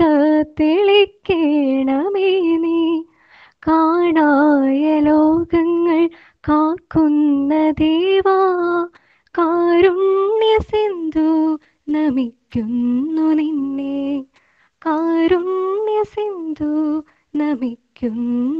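A woman singing solo and unaccompanied, in phrases of held, wavering notes broken by short pauses.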